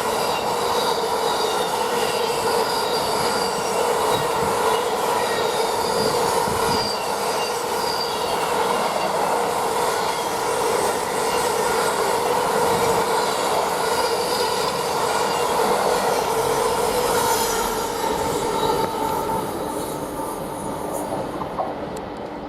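Container freight train rolling through at speed, its wagon wheels squealing with several steady high tones over the rolling noise. The sound fades away over the last few seconds.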